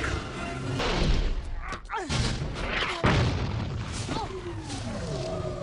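Explosions on an animated film's action soundtrack: several booms, the sharpest about three seconds in, with falling whistling tones over them.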